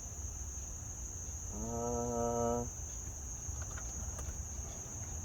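Steady high-pitched trill of crickets over a low rumble. About one and a half seconds in, a man's held hum lasts about a second, and a few faint clicks follow.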